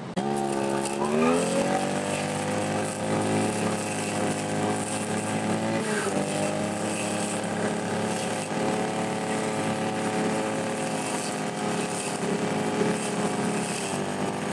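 Husqvarna 541RS brushcutter's 41.5 cc two-stroke engine revs up on the throttle about a second in, then runs steadily at high speed as the blade cuts weeds, with a brief dip in revs about six seconds in.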